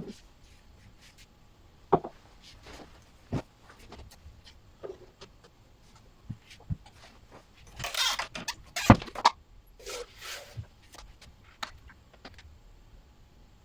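Ironing clothes by hand: scattered knocks of the iron being set down and moved, with short rustles of fabric, busiest about two-thirds of the way through.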